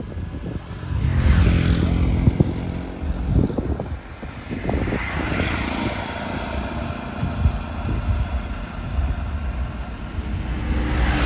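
An engine running with a steady low hum, under a few swells of rushing noise.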